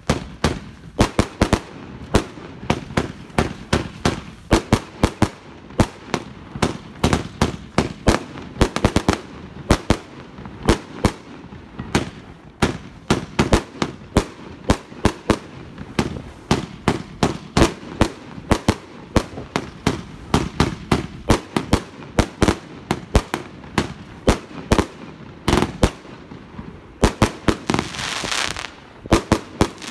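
Consumer fireworks battery (cake) firing shot after shot: a steady run of sharp bangs, about two or three a second, with a hissing rush near the end as a large burst goes off.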